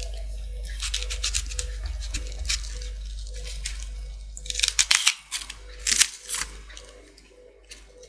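Raw onion being cut into pieces with a knife: a run of short crisp crunches, thickest about halfway through, over a steady low electrical hum.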